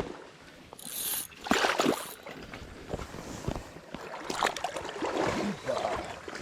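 Creek water splashing irregularly, several separate splashes over running stream water, as a hooked northern pike is brought in at the bank.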